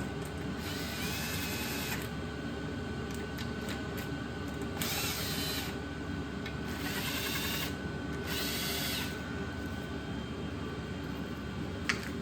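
Cordless power drill/driver whirring in four short bursts of about a second each, its motor whine rising and falling in pitch within each run, over a steady background hum. A single sharp click comes near the end.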